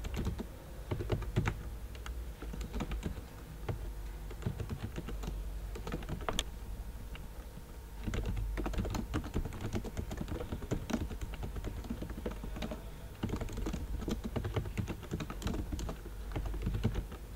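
Typing on a computer keyboard: rapid, irregular key clicks in runs with short pauses, over a low steady hum.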